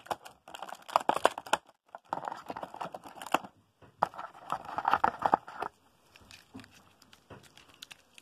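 Clear plastic toy packaging crinkling and crackling as it is handled and pulled open, in three bursts of a second or more each, then only light scattered clicks and rustles.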